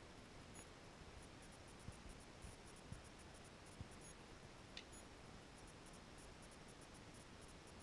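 Near silence: faint room hiss with a few soft, dull taps of a fingertip pressing the buttons on an electronic conference badge lying on a stone countertop.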